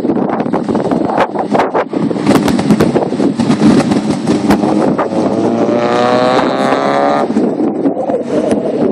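Wind buffeting the microphone over the sound of cars running. About five and a half seconds in, an engine note rises steadily for nearly two seconds as a car accelerates.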